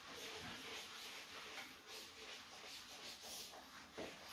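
Faint rubbing of a whiteboard eraser wiped across a whiteboard in repeated strokes.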